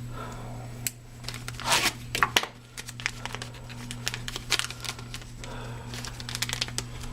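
Plastic packaging crinkling and tearing as a small parts packet, the new carburetor needle and seat, is opened, loudest about two seconds in, followed by many light clicks and taps of small parts being handled.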